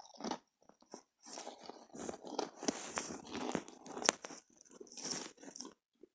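A person chewing a crunchy chip close to the microphone: a run of irregular, crackly crunches.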